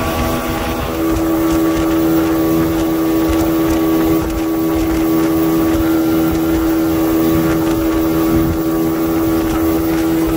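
Johnson 225 outboard motor running at speed at a steady pitch, with the rush of water and wind of a boat planing.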